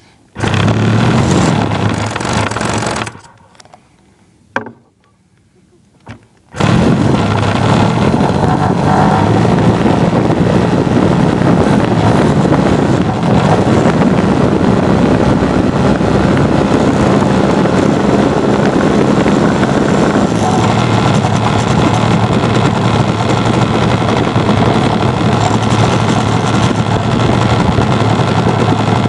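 RC airplane's motor and propeller running right beside the microphone, heard from the iPod strapped to the airframe, with the prop wash buffeting it. The motor runs for about three seconds, stops for about three seconds, then starts again about six seconds in and runs steadily.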